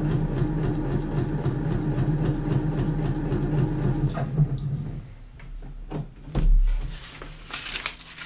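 Electric sewing machine stitching unthreaded through a paper practice sheet: a steady motor hum with rapid, even needle ticking, stopping about five seconds in. After it come a few clicks, a dull thump and a brief rustle of paper being handled.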